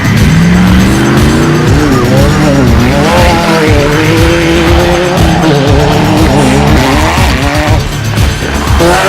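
Off-road race vehicle's engine revving hard, its pitch climbing and dropping again several times, with music underneath.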